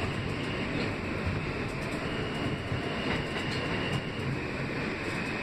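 R160B subway train running at speed, heard from inside the car: a steady, loud rumble of wheels on rail with a faint, steady high whine, as another subway train passes close alongside on the next track.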